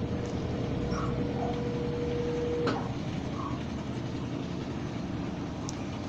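Brastemp BWK 12 kg top-loading washing machine spinning a packed load of towels and clothes: a steady whir, with a faint hum that drops out about two and a half seconds in. The machine is shaking a little, the load slightly out of balance as the owner thinks.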